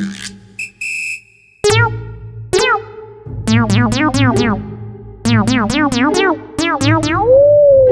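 Synthesizer music: runs of quick downward-diving electronic zaps, about three a second, over a steady low bass note, with a slow swoop up and back down near the end.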